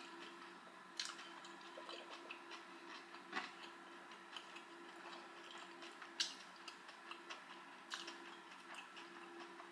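Faint clicks and ticks from drinking a glass of iced ginger ale: sips, swallows and ice against the glass. A few sharper clicks stand out, about a second in, around three and a half seconds, six seconds and eight seconds in. A faint steady hum sits beneath.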